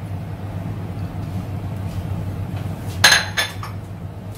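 A metal fork clinking twice against a glass dish of beaten eggs, a sharp ringing chink about three seconds in, over a steady low hum.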